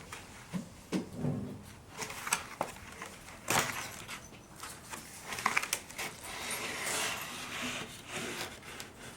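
Scattered light knocks, clicks and rustling of objects being handled, with a short voice sound about a second in.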